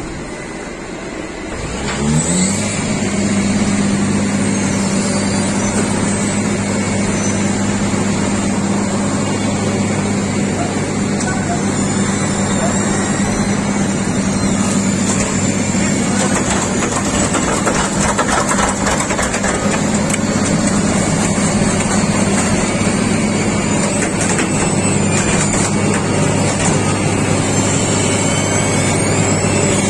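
Vögele asphalt paver's diesel engine rising in pitch about two seconds in, then running steadily at a higher working speed with a constant low hum while the machine lays asphalt.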